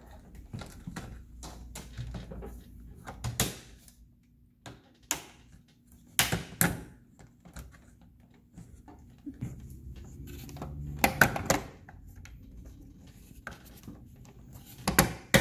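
Hard plastic wall panels of a Frozen 2 Ultimate Arendelle Castle toy playset being handled and snapped into place: scattered sharp clicks and knocks, the loudest a little past two-thirds of the way in and again near the end.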